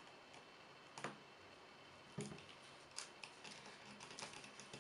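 A handful of faint, short clicks and crackles, roughly one a second, as a thin plastic soda bottle filled with set gelatin is cut open with a utility knife.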